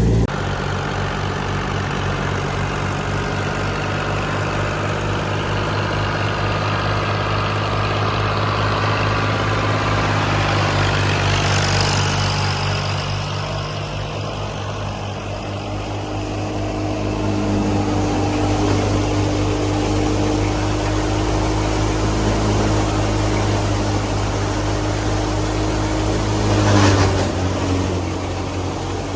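Clayson 8080 combine harvester running steadily under load, its engine drone mixed with the clatter of the threshing machinery. There is a brief louder swell near the end.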